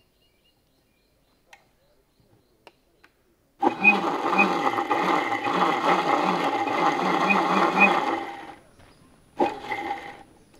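Electric mixer grinder running for about five seconds, grinding a wet chilli, garlic and paprika paste in its steel jar, then stopping, with a second short burst about a second later. A few light clicks come before it starts.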